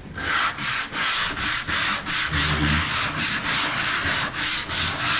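Sandpaper rubbed by hand over a wooden cabinet door in quick back-and-forth strokes, about three a second, smoothing the grooves before lacquering.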